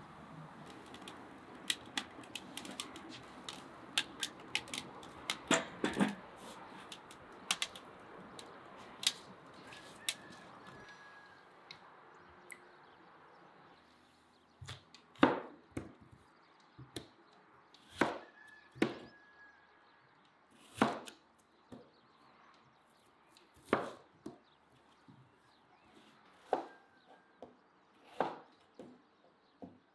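Wood fire crackling in a metal stove, sharp pops over a low rush. From about halfway, a knife chopping peeled potatoes on a cutting board, about ten cuts, one every one to three seconds.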